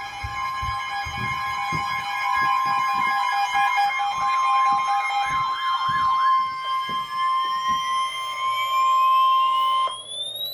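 Emergency alert attention tone: two steady high tones held together, then one alone while siren-like warbles and a long rising sweep join it, ending in a sweep that rises and falls. Irregular low thumps run underneath.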